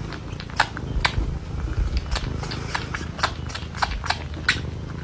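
A pet chewing food: sharp, irregular crunches, a few a second, over a steady low rumble.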